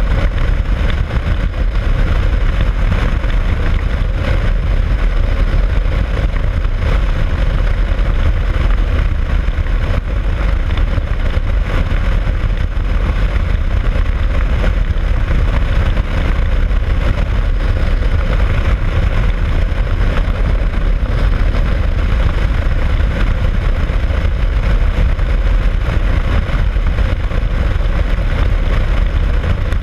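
Steady, loud wind rush on the camera microphone of a motorcycle travelling at highway speed, with engine and road noise blended underneath on a wet highway.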